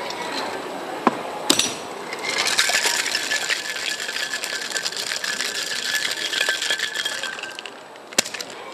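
Ice rattling inside a copper-coloured metal cocktail shaker shaken hard for about five seconds, mixing a mojito. Two knocks come about a second in, before the shaking, and there is a single sharp knock near the end.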